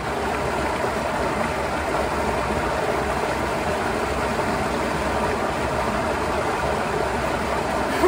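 Water of a geothermally heated creek rushing steadily over a low rocky cascade, an even wash with no breaks.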